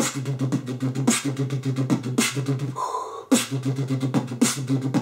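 Beatboxed beat built on a hummed bass note that is chopped into pulses by closing the lips, with beatboxed kick and snare hits over it. The bass is clean, more of a wave bass than a shaky lip-vibration bass. It drops out briefly about three seconds in, then the beat resumes.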